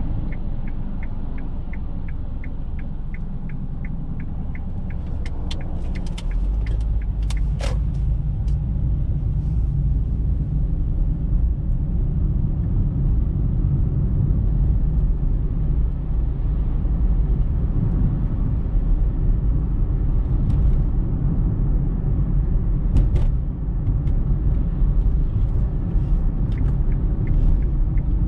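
Car driving on suburban roads, heard from inside the cabin. A turn-signal indicator ticks about three times a second for the first five seconds. Then the engine and tyre rumble grows as the car pulls away and runs on steadily, with a few sharp clicks and knocks.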